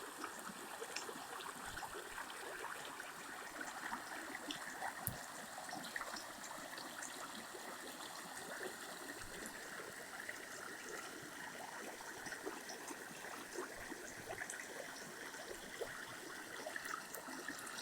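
Small waterfall: water running and trickling steadily at a fairly low level, with small scattered splashes.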